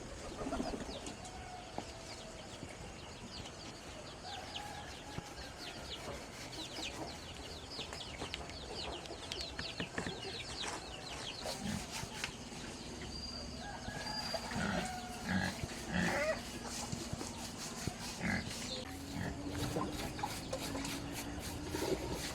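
Chickens clucking and small birds chirping, with scattered knocks in the second half.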